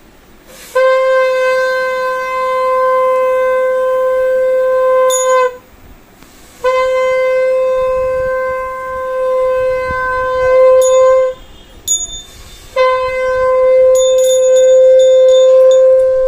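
Conch shell (shankha) blown as part of a Hindu puja: three long, steady blasts of about four to five seconds each, with short breaks for breath between them.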